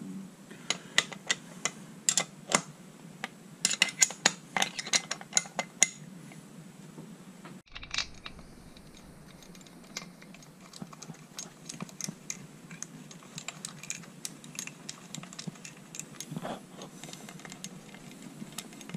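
Ratchet wrench clicking in quick runs as bolts are tightened on an outboard's lower unit housing; the clicks are loudest in the first six seconds and fainter after about eight seconds.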